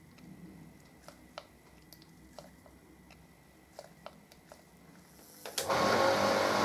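A low background with a few light clicks while cutting oil is squirted from an oil can onto the cutter. About five and a half seconds in, the homemade gear shaper starts suddenly and loudly: its gear-motor-driven ram strokes the cutter up and down into a steel internal-gear blank.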